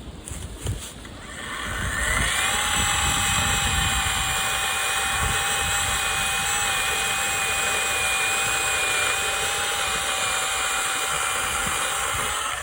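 Greenworks 40 V cordless electric chainsaw switched on: after a short delay its motor whine rises to full speed about two seconds in. It then runs at a steady, even pitch and cuts off abruptly near the end.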